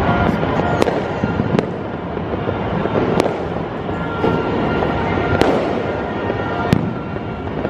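Many fireworks and firecrackers going off at once: a continuous crackling rumble with sharp bangs standing out about five times.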